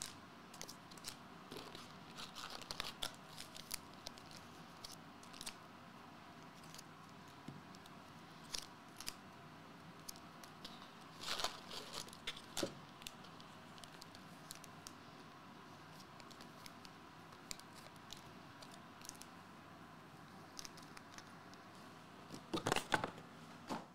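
Foil trading-card booster packs being handled: faint, scattered crinkling of the foil wrappers and light taps as the packs are shuffled and set down on a mat, with a busier flurry of crinkles near the end.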